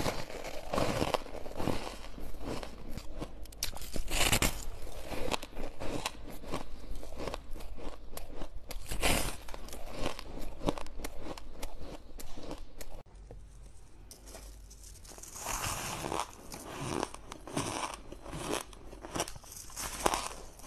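Close-miked crunching of frost-covered ice being bitten and chewed, many sharp cracks in quick succession. It breaks off abruptly about thirteen seconds in, and softer crunching of ice picks up again a couple of seconds later.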